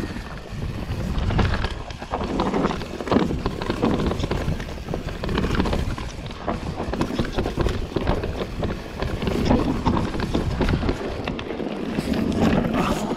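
Enduro mountain bike ridden fast down a rough dirt singletrack: tyres, chain and frame rattling and knocking over roots and rocks, with wind rushing on the microphone.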